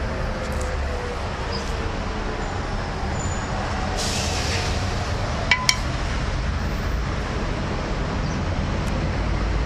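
Steady low rumble of background noise, with a short hiss about four seconds in and two quick metallic clinks just after.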